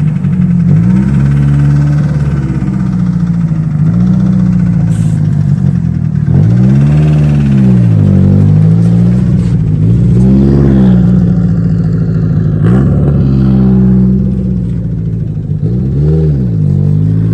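Turbocharged Nissan 240SX (S13) engine idling and being revved about six times, each rev rising and falling back to idle within a second or so.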